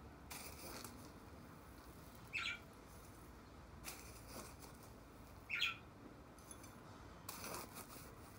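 Soft scraping and rustling of gritty potting mix being scooped into a pot, broken twice by a short, high bird chirp about three seconds apart.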